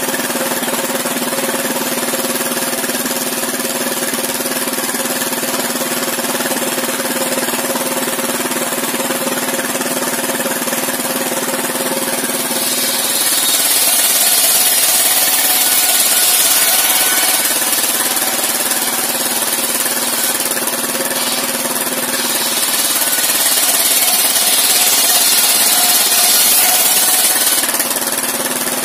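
A stationary engine runs steadily, driving a circular saw bench. About halfway through, the spinning blade rips lengthwise through a wooden plank, adding a louder, high hissing cut that eases for a moment and picks up again before stopping near the end.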